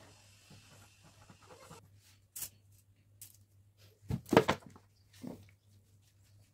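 Tabletop handling sounds while assembling a cake: a few light clicks, then a short cluster of knocks and rattles about four seconds in as a plastic bottle is picked up, with a smaller knock a second later. A low steady hum runs underneath.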